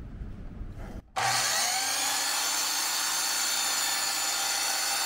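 DeWalt sliding compound miter saw switched on about a second in, its motor whining up to speed and then running steadily with the blade spinning free above the board.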